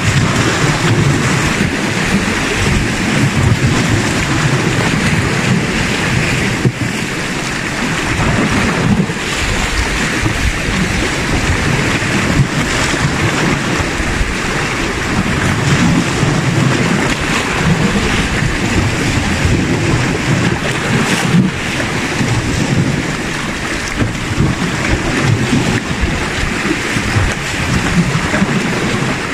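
Sea waves washing and breaking against shoreline rocks, a continuous loud rush of surf, with wind noise on the microphone.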